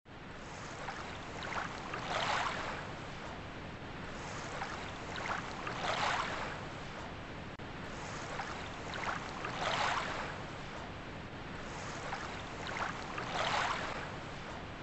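Waves washing ashore in an even rhythm, one swell about every four seconds, over a steady rush of wind.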